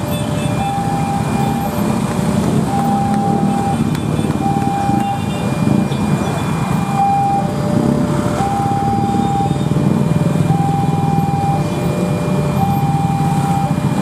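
Railway level-crossing warning alarm sounding a repeating two-tone signal, a higher tone alternating with a lower one about every second, the warning that a train is approaching. Under it, the low rumble of idling motorcycle and car engines queued at the crossing.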